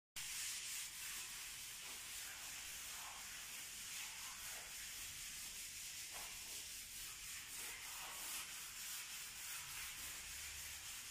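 A sponge rubbing wet cement grout over freshly laid ceramic floor tiles and into their joints: a steady scrubbing noise with uneven strokes.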